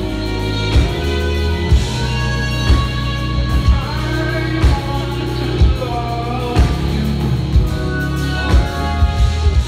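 Live jazz band playing: a trumpet carries a bending melody over electric bass, keyboards and drums, with a drum hit about once a second.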